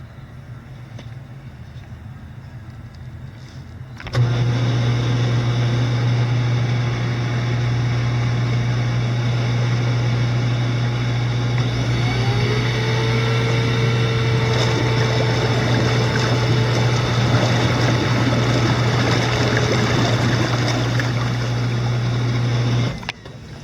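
Hot tub motor switching on about four seconds in and running with a steady hum over churning water, then cutting off abruptly near the end.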